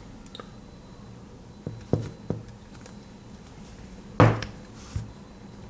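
Light clicks and taps of a Victorinox Compact Swiss Army knife being handled while a tool, the corkscrew, is pried out, with one sharp, louder click about four seconds in.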